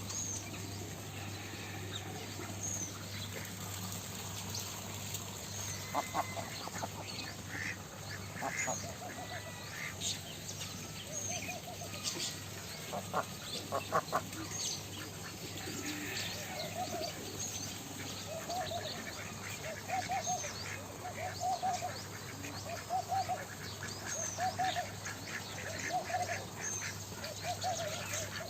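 A flock of domestic ducks quacking, with short calls coming about once a second through the second half, mixed with higher bird chirps.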